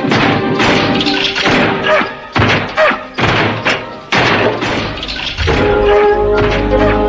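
AI-generated slapstick cartoon foley: a rapid run of loud whacks, thuds and crashes over music. From about five and a half seconds in, the hits thin out and the music carries on with steady held notes over a low rumble.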